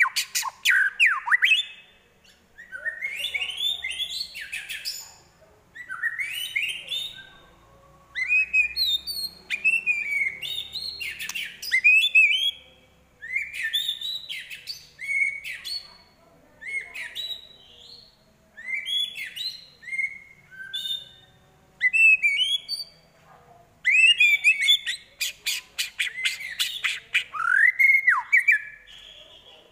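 White-rumped shama singing in short, varied phrases of whistled slurs and chattering notes separated by brief pauses, its song holding mimicked calls of other birds. Near the end comes a rapid run of sharp, quick-fire notes.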